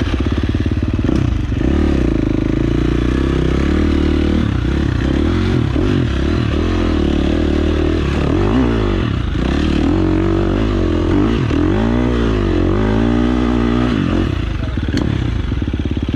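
Trail motorcycle engine running hard, revving up and down several times in a row, strongest about halfway through.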